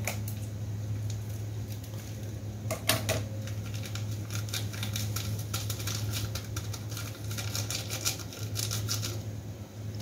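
Small plastic instant-noodle seasoning sachets being torn open and squeezed out over a bowl: a sharp tear about three seconds in, then crinkling and crackling of the plastic until near the end. A steady low hum runs underneath.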